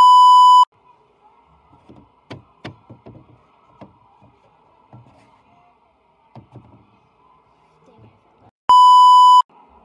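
Loud, steady test-tone beep of the kind played over TV colour bars, lasting under a second, heard twice: at the very start and again near the end. Between the beeps, a few soft taps and knocks of plastic animal figurines being set down and moved by hand.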